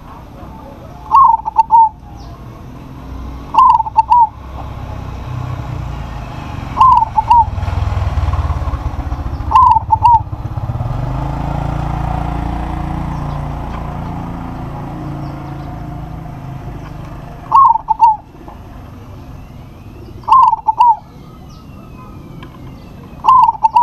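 Local zebra dove (perkutut) cooing: seven short phrases of a few quick notes each, repeated every few seconds with a longer pause in the middle. A low rumble swells and fades underneath during the middle stretch.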